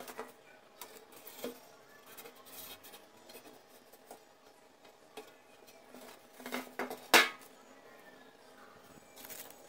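Copper box being handled and set on a tabletop: scattered light metallic clinks and knocks, the loudest a sharp knock about seven seconds in.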